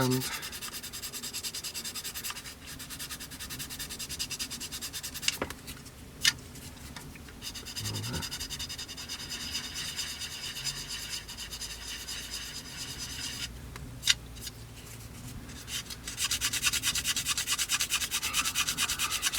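Sandpaper scraping on a plastic model kit's air intake, rapid back-and-forth sanding strokes in spells with brief pauses and a few sharp clicks, the strokes strongest near the end.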